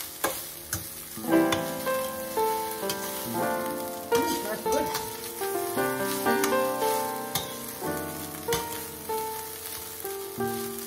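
Rice frying with a sizzle in a stainless-steel pan as it is stirred and mashed with a slotted spatula, which scrapes and clicks against the pan now and then. A background melody of changing notes plays over it.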